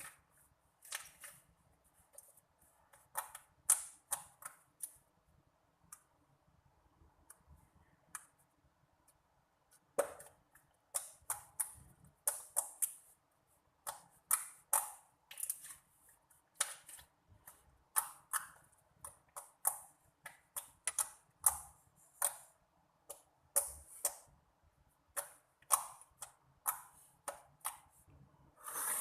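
Slime being squeezed and poked, making irregular crisp clicks and pops in quick clusters.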